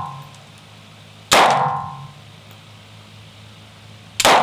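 Two TT-33 pistol shots about three seconds apart, each ringing and echoing off the walls of an indoor range as it dies away. The tail of an earlier shot fades out at the very start.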